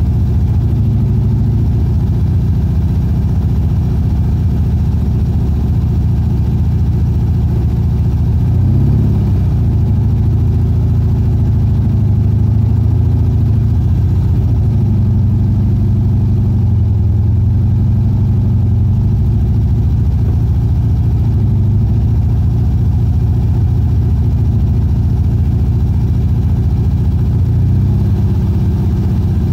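Volkswagen Fusca (Beetle)'s air-cooled flat-four engine running while the car is driven, heard from inside the cabin. The engine note rises about nine seconds in and then shifts up and down with the throttle.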